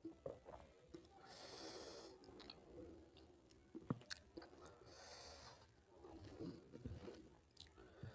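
Faint, close-miked eating sounds: chewing and wet mouth noises, with two brief hissing sounds and a few sharp clicks.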